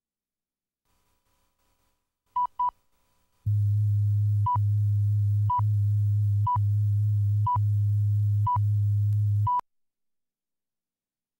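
Film-leader countdown sound effect: a steady low hum with hiss and a short high beep once a second, six beeps, then it cuts off suddenly. Two quick beeps come just before the hum starts.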